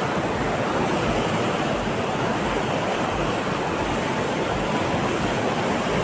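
Steady rushing of a fast mountain river running over boulders.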